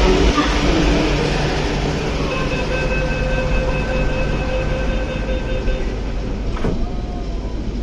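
Door-closing warning tone on an MTR Q-Train car: a steady electronic tone sounds for about three and a half seconds while the doors close, then stops, over the steady hum of the train and station.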